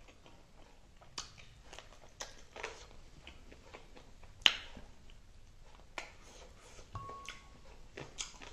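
Close-miked mukbang eating sounds of chicken wings and rice eaten by hand: scattered wet mouth clicks and smacks while chewing, with a single sharp click, the loudest, about four and a half seconds in.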